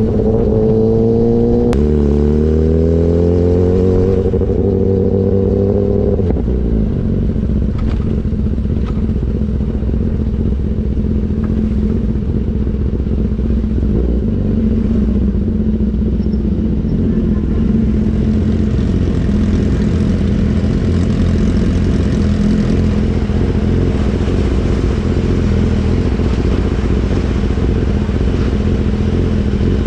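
BMW S1000RR inline-four engine through an Austin Racing GP1R full Inconel exhaust, accelerating hard with a drop in pitch at a gear change about two seconds in, then running at a steady pitch. The rushing noise grows louder in the second half.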